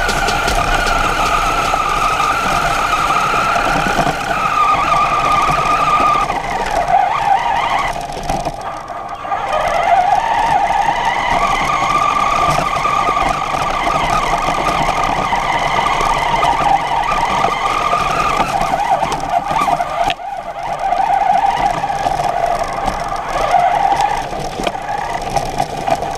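Radio-controlled truck's motor and drivetrain whining as it drives over dirt, the pitch rising and falling with the throttle. The whine drops away briefly about eight seconds in and again around twenty seconds.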